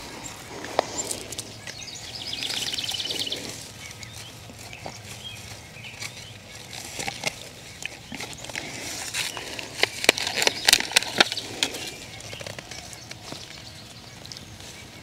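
Hand planting in a mulched garden bed: a long-bladed hand digging tool working and scraping the soil, with a burst of sharp clicks and knocks about ten seconds in.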